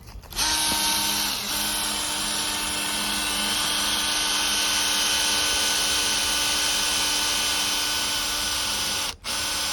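Ryobi cordless drill fitted with a 1/8-inch Milwaukee cobalt bit, drilling into metal: the motor runs at a steady pitch under load while the bit cuts. It starts just after the beginning, stops for a moment near the end, then starts again.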